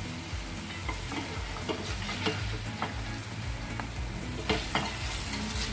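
Pork belly sizzling in its rendered fat in a wok while a metal spatula clicks and scrapes against the pan, lifting the pork out.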